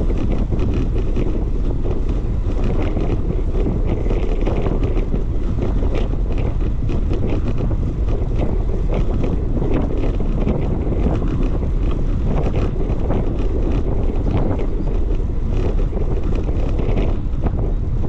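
Wind buffeting the microphone of a camera on a moving bicycle: a loud, steady low rumble with faint scattered ticks above it.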